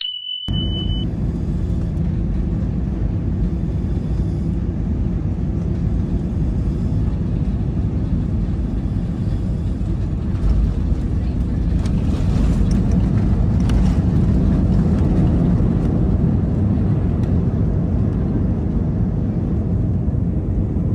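Steady low rumble of airliner cabin noise: engines and airflow heard from inside the passenger cabin, swelling a little midway. A short high tone sounds right at the start.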